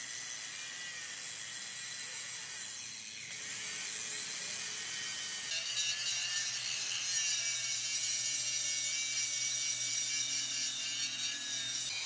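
Angle grinder with an abrasive disc grinding the steel frame rail of a truck chassis: a steady high whine with a grinding hiss, growing louder a few seconds in.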